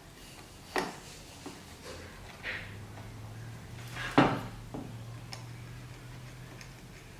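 A few knocks and clatters of hard objects being set down and handled on a table, the loudest about four seconds in, with a low steady hum under the middle part.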